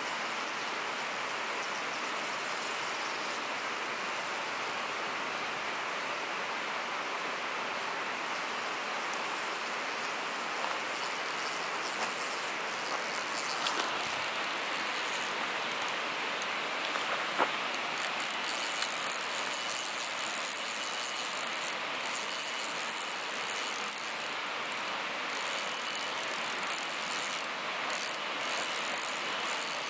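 Spinning fishing reel being cranked, its gears and anti-reverse pawl ticking, over a steady rushing hiss.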